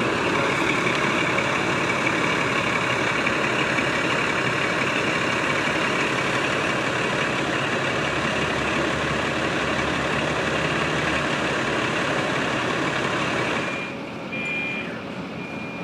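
Steady hiss of radio static on an open scanner channel. Near the end the hiss drops and short, evenly pitched beeps repeat several times.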